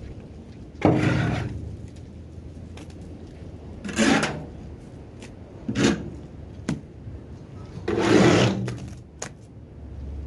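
A long-handled scraper dragged across the muck-covered floor of a livestock trailer in four strokes, the longest about a second in and near eight seconds, with a few short knocks of the tool between.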